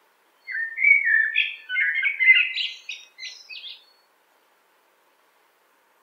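Common blackbird singing one song phrase, starting about half a second in. It is a run of low, fluty warbling notes, ending in a higher, squeaky twitter.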